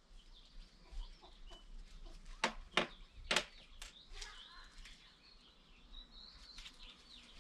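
Faint bird calls chirping over quiet outdoor background. A few short, sharp knocks or clucks stand out about two and a half to four seconds in.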